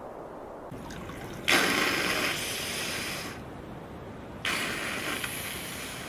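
Two humpback whale blows: loud rushing exhalations, the first about a second and a half in and the second about three seconds later, each starting sharply and fading over a couple of seconds.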